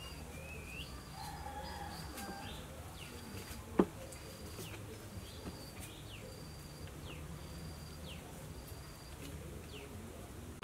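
Birds calling outdoors in short falling chirps, with a high note repeating about once a second over a steady low background. One sharp knock stands out about four seconds in.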